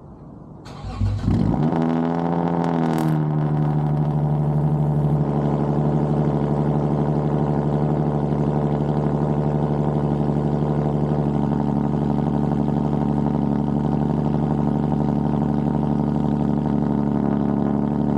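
Lexus IS 250's 2.5-litre V6 being started: a brief starter crank, the engine catching with a flare of revs that sweeps up and falls back over about two seconds, then idling steadily.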